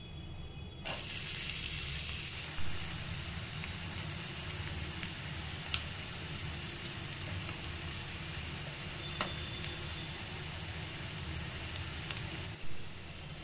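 Chopped onions frying in hot oil in a kadai: a sizzle that starts suddenly about a second in, stays steady, and drops off near the end, with a few light clicks along the way.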